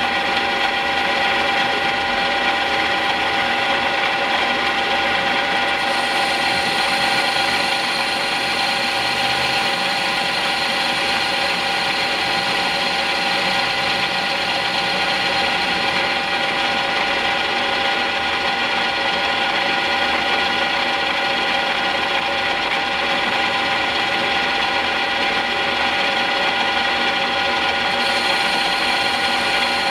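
A CNC-converted E1N metal lathe running steadily under power, its gearing giving a constant whine of several steady tones, while the tool turns a rounded, hemispherical end on the spinning bar.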